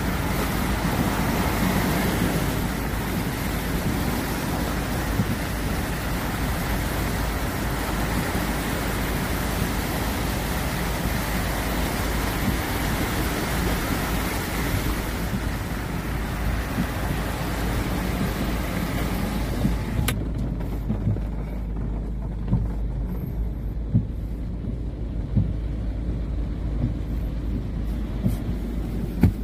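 Steady rushing noise of heavy rain and a fast, muddy floodwater torrent. About two-thirds of the way through, the high hiss cuts off sharply, leaving a low rumble with a few short bumps.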